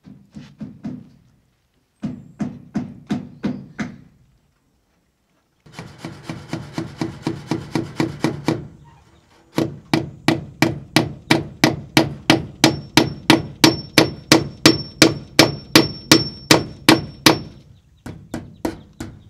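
Claw hammer driving nails through expanded metal lath into a hewn log wall: runs of quick, even blows, about three or four a second, separated by short pauses. In the longest run a high metallic ring sounds with each blow.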